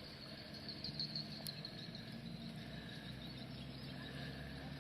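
Crickets chirring steadily, with a low steady hum underneath.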